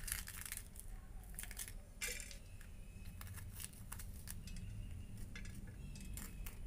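Knife scraping the seeds and white pith out of a halved green bell pepper over a steel plate: faint, scattered crackling scrapes and light clicks.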